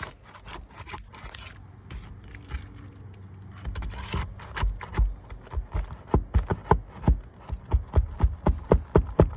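A metal roofing tool scraping and clicking against asphalt shingles as it is worked under them to reach the nails. There are scrapes in the first half, then a run of sharp clicks and taps at about three a second.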